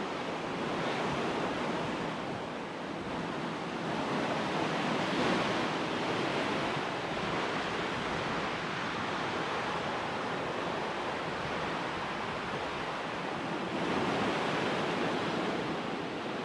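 Ocean surf washing onto a sandy beach: a steady rush of breaking waves that swells a little about four seconds in and again near the end.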